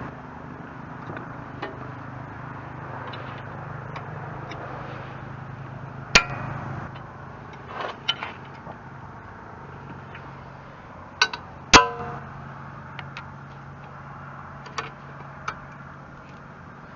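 Tractor diesel engine idling steadily under a few sharp, ringing metallic clinks of a wrench on the backhoe's control linkage, the loudest about six and twelve seconds in.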